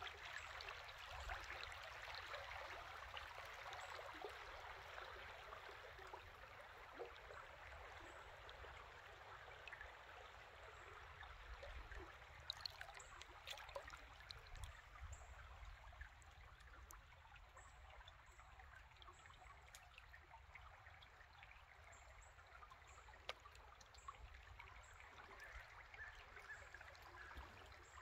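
Faint steady rushing and rippling of a swollen creek's current around a kayak, a little louder at the start and slowly fading, with a few light clicks and knocks.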